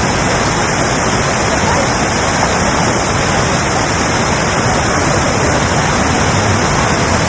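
A waterfall rushing: a loud, steady, unbroken noise of falling water.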